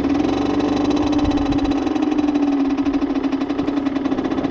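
50cc moped engine running at a steady, fairly low speed, its pitch sagging slightly about halfway through, as a beginner eases the clutch out with a little throttle.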